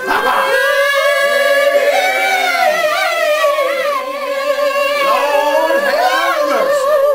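Singing: a long held high note that slides at first and then wavers with vibrato near the end.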